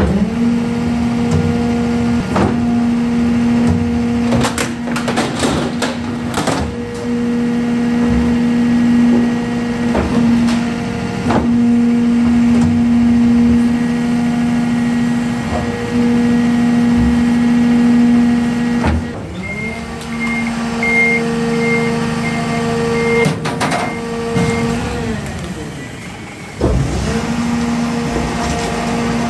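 Press-type garbage truck's hydraulic compactor running with a steady hum while a clear plastic storage box is crushed, cracking and snapping loudly several times. About two-thirds through the hum drops and shifts, with a short run of high beeps, then picks up again near the end.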